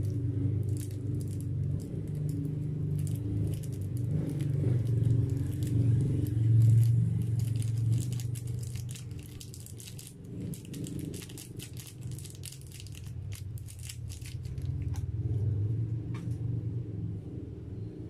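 A small plastic sachet of chocolate topping shaken over a mug of frothy coffee, its packet crinkling and rattling in many quick little ticks, over a low steady hum.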